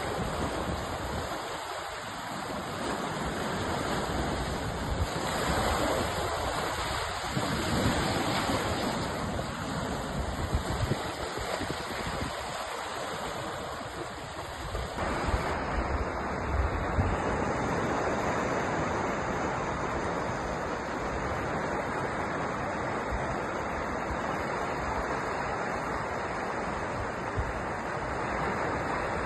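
Sea surf: a steady rush of waves breaking and washing onto the shore, swelling and easing gently.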